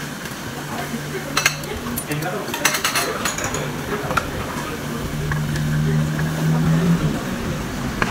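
Metal cutlery clinking against dishes, once about one and a half seconds in and then several quick clinks around three seconds in, over a steady background hum.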